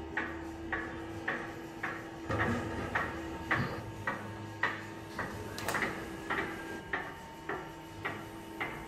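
VMI MAT 150 bowl lift running as it untips and lowers a 200 kg spiral-mixer bowl: a steady motor hum with sharp clicks repeating about twice a second.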